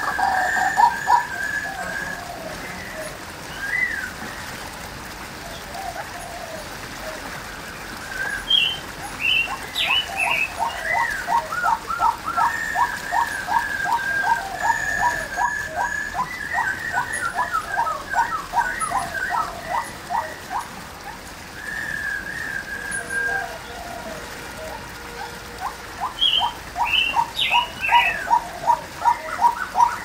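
Female white-breasted waterhen calling: long runs of the same short note repeated about two to three times a second, easing off for a few seconds in the middle and then starting up again.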